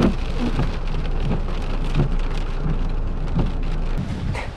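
Heavy rain in a storm, with a constant low rumble under the noise of the rain.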